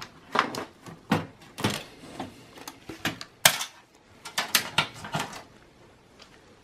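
Motherboard of a Dell OptiPlex 780 mini tower being pulled free and lifted out of its metal case: a run of irregular clicks and knocks of the board against the chassis, dying away about five seconds in.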